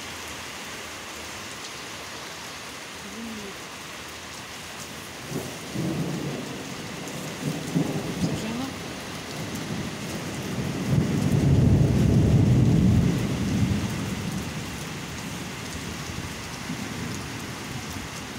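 Steady rain falling during a thunderstorm, with a long rumble of thunder that starts about five seconds in, swells to its loudest a little past the middle, then fades away.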